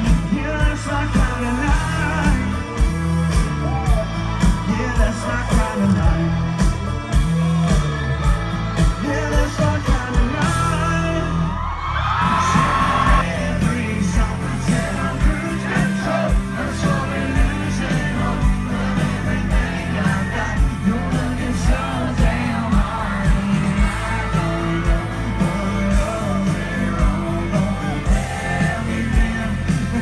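Live country band with a male lead singer through the concert PA, on a steady beat. About twelve seconds in, the bass drops out for a moment under a high sung line, then the full band comes back in.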